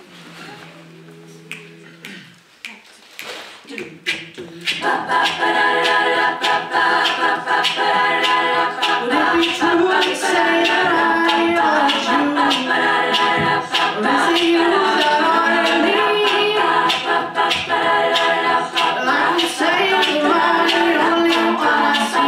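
Women's a cappella group singing: a short held chord at the start, then about four and a half seconds in the full group enters with layered backing harmonies, rhythmic percussive vocal clicks and a solo lead voice on top.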